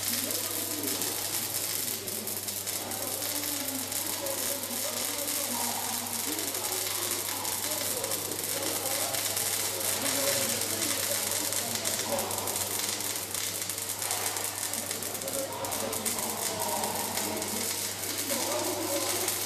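Robotic welding arc crackling and sizzling steadily over a low electrical hum, with voices talking underneath.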